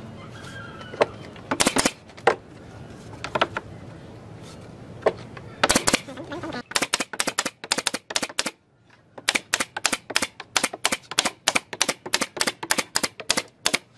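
Pneumatic brad nailer firing nails into pine roof boards in rapid sharp clacks, about three shots a second, with a short pause partway through. A few scattered knocks come first.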